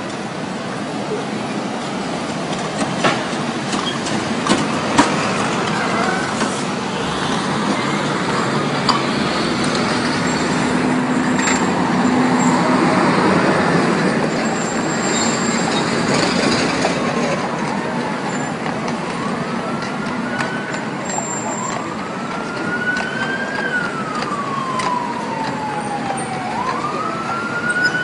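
Heavy city street traffic: a steady rumble and hiss of engines and tyres, with a few sharp knocks and a louder swell as a big vehicle goes by. About two-thirds of the way through, an emergency vehicle's wail siren starts, rising and falling slowly and repeating.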